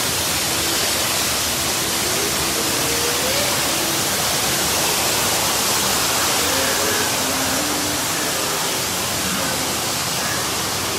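Steady rushing of falling and splashing water from the ride's cave waterfalls, with faint wavering tones beneath it.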